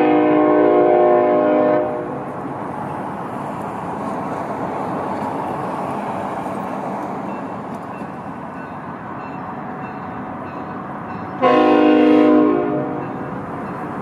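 Locomotive air horn, which the uploader takes for a five-chime K5HL, sounding a chord that stops about two seconds in. The train then rolls steadily past, and the horn sounds again briefly near the end.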